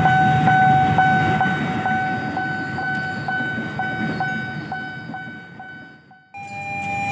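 Railway level-crossing warning bell ringing in an even beat of about two strikes a second over a low rumble, fading out, then cut off about six seconds in, when a different steady tone takes over.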